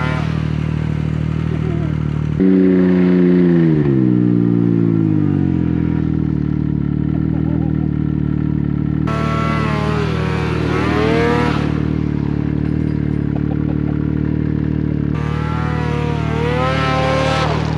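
Snowmobile engines running: a steady engine note throughout. About two and a half seconds in, a louder engine note jumps up and its pitch falls away over a couple of seconds. Twice later, an engine revs up and down with a wavering pitch for a few seconds.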